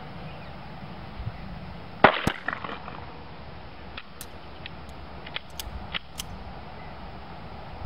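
A Sig Sauer Mosquito semi-automatic .22 LR pistol fired once about two seconds in, a single sharp crack. A few faint clicks follow.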